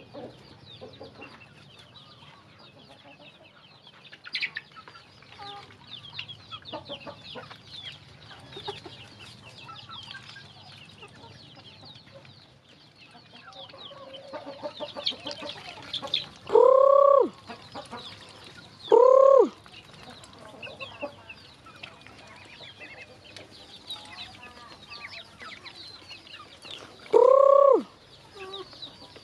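Chickens and ducklings feeding at a plastic pipe trough: many small clicks of beaks pecking feed, with soft clucks and faint high peeps. Three loud calls, each under a second long, stand out: two close together about halfway through and one near the end.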